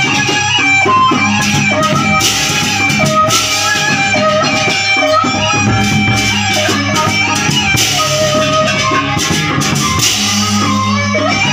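Gendang beleq ensemble playing: a suling bamboo flute carries a stepping melody over the steady beat of the big gendang beleq drums, with a few bursts of brighter crashing.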